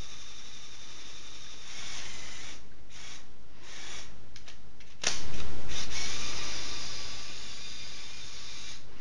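Small electric motors and plastic gearing of a remote-control Lego Technic excavator whirring as the boom and bucket move and the machine turns. The sound stops and starts in short runs, then a louder run begins sharply about five seconds in and slowly fades.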